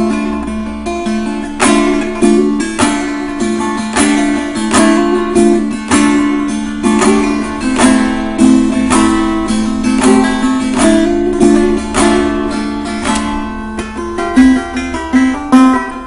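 Kopuz, a Turkic plucked lute, played in free improvisation: sharply plucked notes ringing over a steady drone of open strings, with a run of louder plucks near the end.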